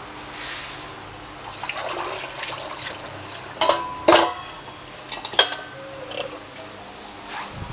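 Metal tools or parts clanking and clinking with a short ring. The loudest are two clanks about three and a half to four seconds in and a sharp clank about five and a half seconds in, over a hissing, splashing noise in the first couple of seconds.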